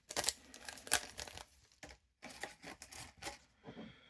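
Foil trading-card booster pack wrapper being torn open and crinkled by hand, in irregular crackles and rips with short pauses.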